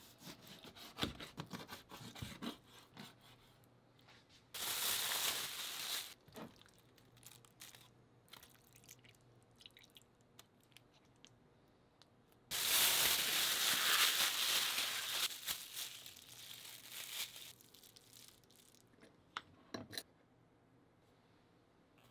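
A chef's knife cutting raw chicken thigh on a plastic cutting board, with quick taps and clicks for the first few seconds. Then a plastic food bag crinkling loudly, once briefly and later for about five seconds, as the chicken is mixed with its seasonings in the bag; a couple of sharp clicks near the end.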